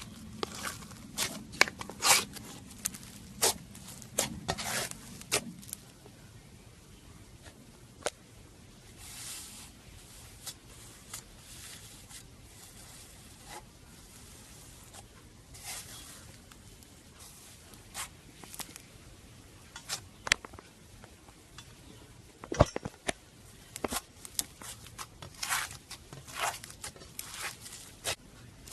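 Slime being squeezed and stretched by hand, giving irregular sticky pops and crackles. They come thickly in the first few seconds, thin out through the middle, and pick up again in the second half.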